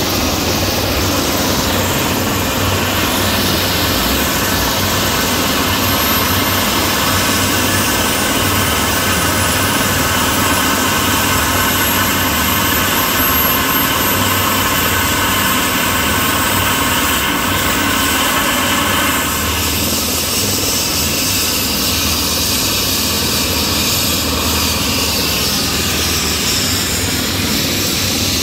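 Airbus EC135 air-ambulance helicopter with its twin turbine engines and main rotor running at speed for takeoff: a loud, steady turbine whine and rotor noise. A high whine climbs slowly in pitch through the first half, and the sound shifts somewhat a little past the middle.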